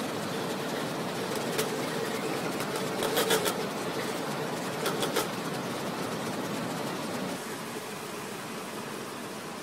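Radio-controlled Kyosho Blizzard tracked snow vehicle running, a faint steady motor whine over a constant hiss, with a few sharp clicks about one and a half, three and five seconds in; the whine fades out and the sound gets quieter after about seven seconds.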